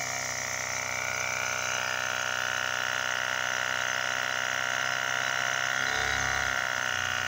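Homemade Tesla mechanical oscillator, a spring-loaded reciprocating piston driven by compressed air at about half a bar, running with a steady buzz and hiss of air that grows a little louder over the first couple of seconds. A brief low rumble comes about six seconds in.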